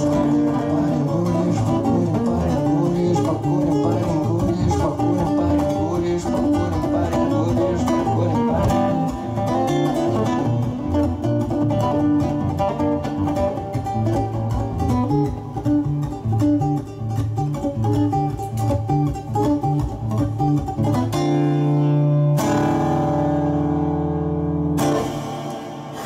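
Solo classical nylon-string guitar playing an instrumental passage of the song, closing on long held chords near the end.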